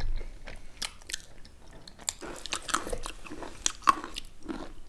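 Close-up mouth sounds of people chewing chicken and dhido: wet chewing with many short, sharp clicks and lip smacks.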